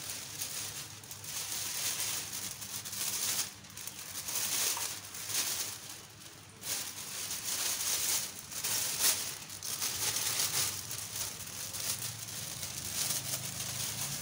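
Large clear plastic fish-shipping bag crinkling and rustling in uneven bursts as it is pulled down over a bonsai and gathered around the pot.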